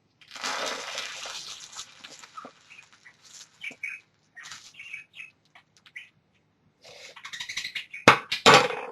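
Molten burnt sugar poured from a spoon into cold milk, hissing for about two seconds as it hits the milk and sets, then scattered faint crackles and squeaks as it hardens. Two sharp clinks near the end.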